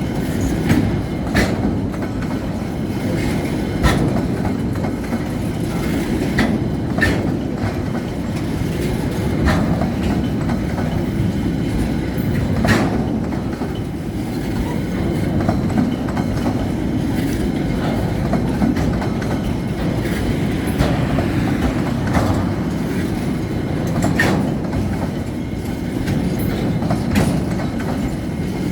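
Freight train of the Belgrano Cargas railway rolling past: the steady low rumble of wagons on the rails, with irregular knocks and clicks from the wheels and couplings.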